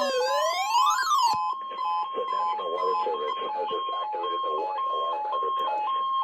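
Electronic alert tone switching back and forth between two pitches, with a rising-and-falling siren wail over it that cuts off suddenly about a second and a half in. A voice announcement is heard faintly under the tone.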